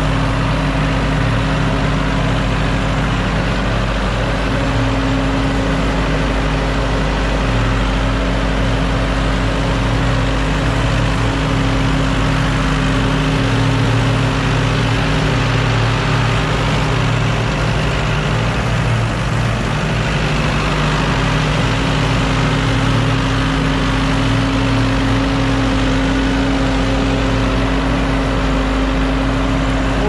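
Ford 5610 tractor's four-cylinder diesel engine running steadily at an even speed.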